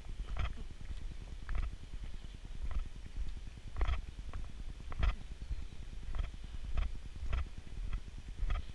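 Regular footsteps on a bitumen road, roughly one a second, over a steady low rumble of movement and wind on a body-worn camera's microphone.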